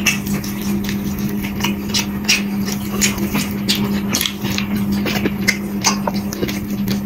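Close-up eating sounds: wet chewing, lip smacks and mouth clicks, a few a second and irregular, over a steady low hum.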